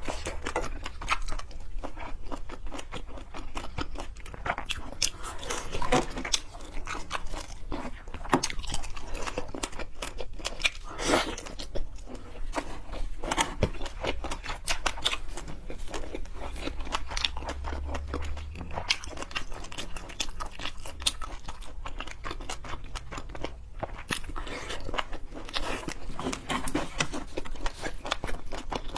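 Close-miked chewing and crunching of seafood, with many irregular wet clicks and crackles of a mouth eating.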